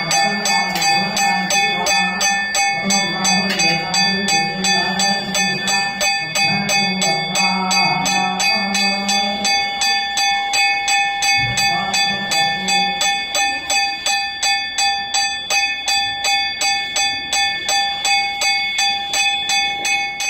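Temple bell ringing continuously, struck in an even rhythm of about three to four strokes a second, its ringing tones sustained between strokes.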